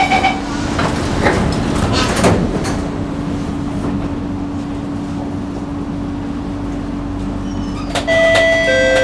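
MRT train's door-closing warning beeps ending, then the sliding doors shutting with a thud about two seconds in. A steady electric hum follows as the train pulls away, and near the end a chime of several clear tones sounds, the lead-in to the next-station announcement.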